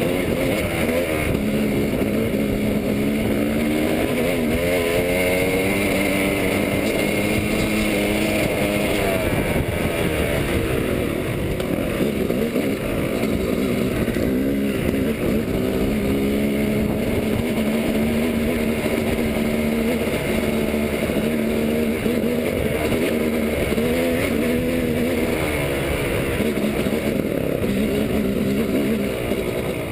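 Yamaha dirt bike engine running under the rider, its pitch rising and falling over and over as the throttle is opened and closed on rough, rocky ground.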